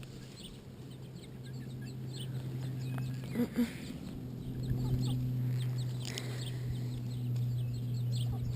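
Chickens clucking, with two short clucks about three and a half seconds in, amid many brief chirps of small birds, over a steady low hum.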